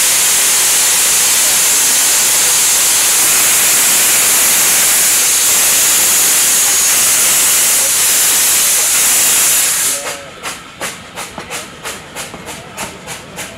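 Steam locomotive L&B No. 762 Lyn moving off with its cylinder drain cocks open, a loud steady hiss of escaping steam. About ten seconds in the hiss cuts off sharply and a rhythmic beat, about three a second, follows as the train gets under way.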